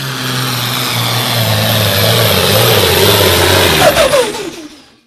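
Hot farm class pulling tractor's diesel engine running hard under load as it drags the weight sled, growing louder as it comes closer. About four seconds in the pitch falls sharply and the sound fades out.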